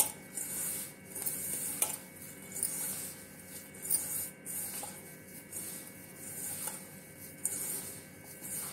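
Hands rubbing and squeezing a crumbly mix of roasted gram flour and powdered sugar in a stainless steel bowl: a soft, scratchy rustle in repeated strokes, about one a second, with fingers brushing the steel.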